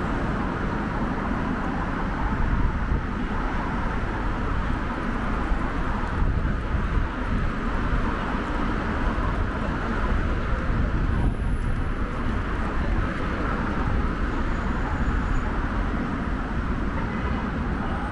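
Steady road traffic noise of a busy city street, cars passing with a constant low rumble.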